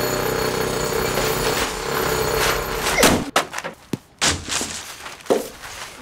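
Horror-film soundtrack: a loud, dense din with steady held tones that cuts off suddenly with a hit about three seconds in. A few scattered sharp thuds and knocks follow.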